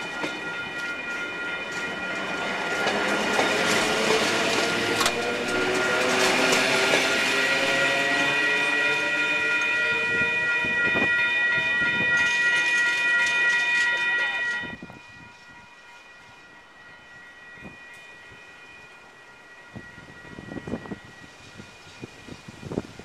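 English Electric electric multiple unit passing close by and drawing away, its traction motors whining up in pitch as it gathers speed, over a steady ringing of level-crossing warning bells. About fifteen seconds in it all cuts off, leaving only a faint distant train sound with a few clicks.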